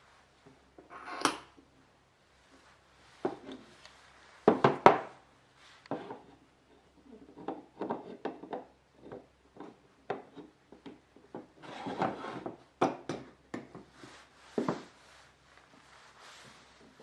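Hand work on a Japanese wooden plane (kanna): irregular wooden knocks, taps and short scrapes, with two sharp knocks close together about four and a half seconds in and a busier run of rubs and taps about twelve seconds in.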